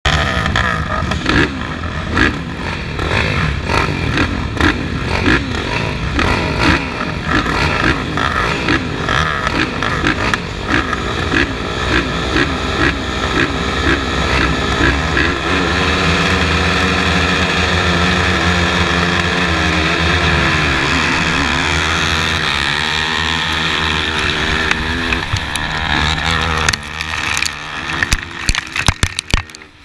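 Several racing ATV engines, among them a Yamaha YFZ450, revving at a start line: throttles blipped over and over in the first half, then held high and steady, wavering as the quads launch. Near the end the sound turns choppy and uneven as the quad rides out over rough ground.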